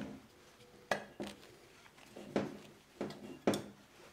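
Light metal clinks and knocks, about five separate sharp ones spread over a few seconds, as thin oil feed pipes are worked loose and pulled out of a Toyota E154F gearbox casing.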